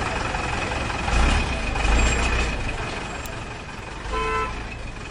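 Tractor engine running, with the low rumble swelling about a second in and again at two seconds, and a short horn honk about four seconds in.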